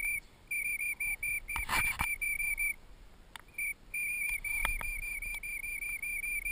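A high, steady whistle-like tone in short pulses, about four a second, that breaks off for about a second midway and then carries on.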